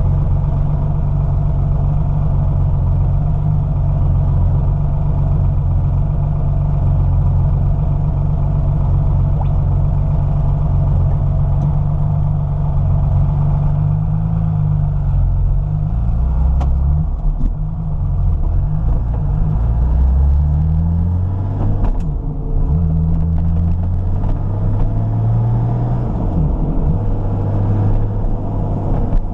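Porsche 993's air-cooled 3.8-litre flat-six running loud at steady revs. About halfway through, the revs start to rise and fall again and again.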